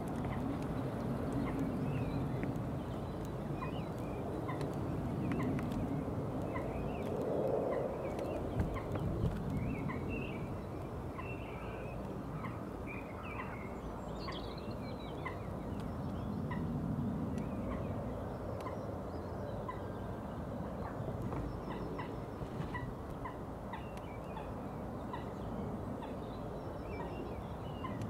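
Outdoor countryside ambience: scattered small bird chirps and calls over a steady low background hum, with soft swells in the low noise now and then.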